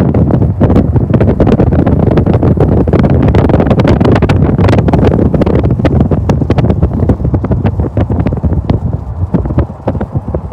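A train passing close by: a loud rumble with rapid, irregular clicking and clattering, with wind on the microphone, easing slightly near the end.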